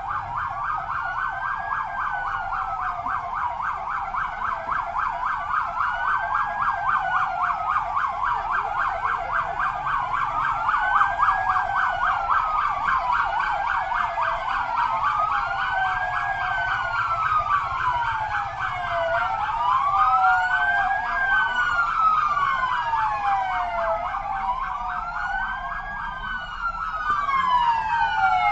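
Several emergency-vehicle sirens sounding at once, each wailing slowly up and down every few seconds over a faster warbling pulse, their cycles out of step with one another. More wails overlap near the end.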